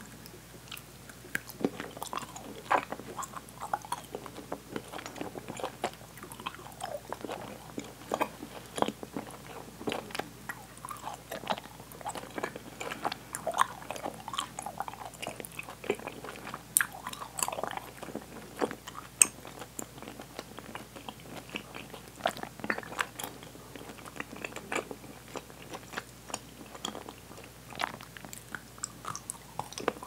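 Open-mouthed chewing of sticky Swedish candy, including black licorice: irregular smacking and clicking as the chewy sweets stick to the teeth.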